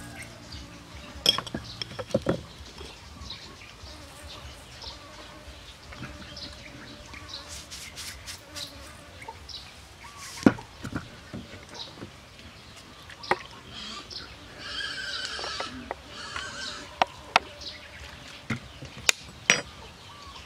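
Seasoning spooned onto a salad in a steel bowl: scattered light clicks and taps of the spoon, the sharpest about halfway through and near the end, over faint background noise.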